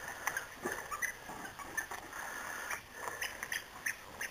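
Light scattered clicks and scuffles of dogs' paws and claws on concrete as corgi puppies and dogs play.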